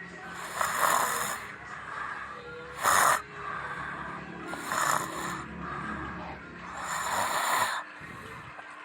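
A person snoring: four rough, noisy snores about two seconds apart, the one about three seconds in short and the loudest.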